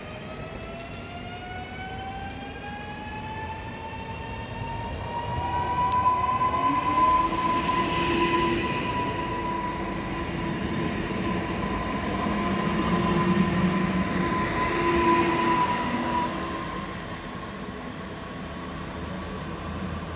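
A 36WEha electric multiple unit passes close by. The whine of its traction motors rises in pitch over the first six seconds or so, then holds steady, with rail running noise that swells twice as the cars go past and fades near the end.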